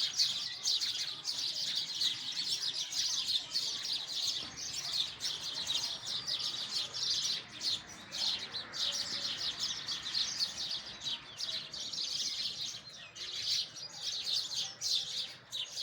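A flock of sparrows chirping continuously, with many short, high chirps overlapping one another.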